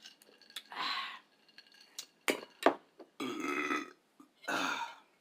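A person burping: three burps in about four seconds, with a couple of short clicks between the first two.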